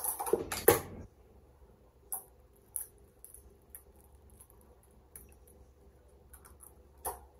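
An egg cracked against the rim of a clear jug: two sharp knocks in the first second, then a few faint clicks as the shell is pulled apart and handled.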